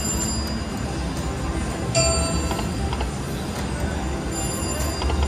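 Three-reel slot machine playing its electronic sounds: ticking reel-spin effects and short tones, with a sharper chime about two seconds in, over a steady casino-floor hum and music.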